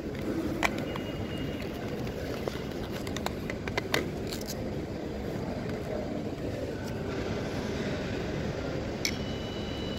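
Steady low rumble of background machinery and hall noise, with scattered clicks and knocks of small devices and bags being handled on a security-check table. A faint high tone sounds briefly near the start and again near the end.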